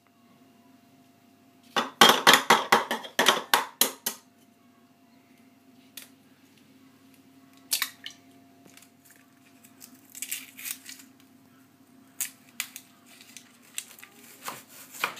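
Kitchen food-preparation sounds over a steady low hum: a quick run of clattering knocks about two seconds in, a single sharp crack of an egg on the rim of a bowl about eight seconds in, then a knife cutting through an onion and tapping on a wooden chopping board near the end.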